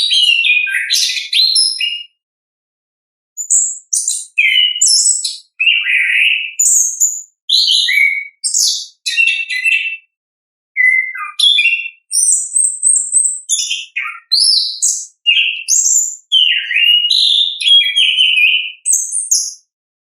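Chestnut-capped thrush (anis kembang) singing in full 'ngeplong' song: a rapid string of varied, high, warbling and chattering phrases with short breaks between them. There is a pause of just over a second about 2 s in.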